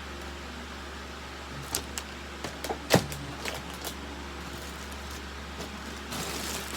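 Handling noises: a few light clicks and knocks, the loudest about three seconds in, then a brief rustle near the end, over a steady low hum.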